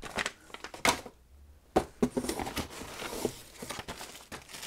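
Plastic packaging bags crinkling and rustling as they are handled and lifted out of a cardboard box, with irregular sharp taps and clicks, the loudest about one and two seconds in.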